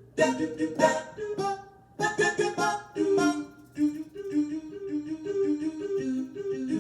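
Roland FP-30 digital piano playing its synthesized voice tone. Sharp, short accented notes sound in quick clusters for about the first three seconds, giving the staccato effect the voice takes on when keys are struck hard. After that come smoother, held notes.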